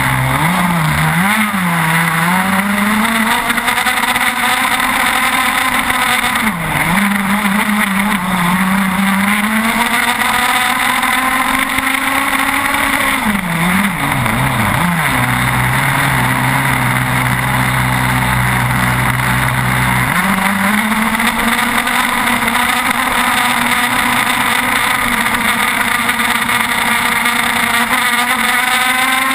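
30cc two-stroke petrol engine of an RC catamaran racing boat, fitted with a Quickdraw tuned pipe, running hard at high revs. It is heard up close from on board, and its pitch dips and climbs back three times.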